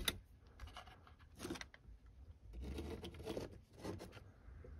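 Faint handling noises of an HO-scale plastic model locomotive being moved and set down by hand on a padded surface: a few light knocks and a longer scraping rustle about halfway through.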